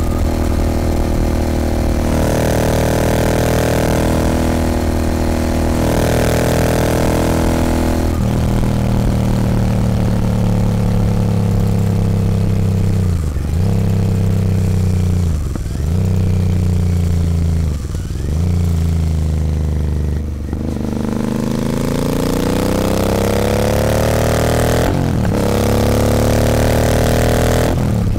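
Royal Enfield Continental GT 650's 648 cc parallel-twin engine running through an aftermarket Nuke exhaust while riding. The engine note holds, then eases off and falls with a few short breaks in the middle. It then climbs in pitch under acceleration, broken once by a gear change about three-quarters of the way through.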